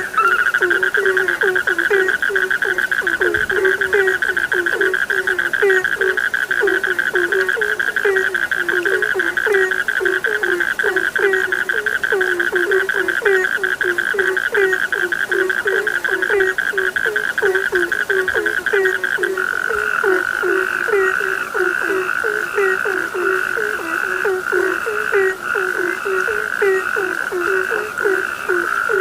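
A chorus of frogs calling: low croaks repeating about twice a second, over a continuous high-pitched trill. The trill turns choppier and pulsing about two-thirds of the way through.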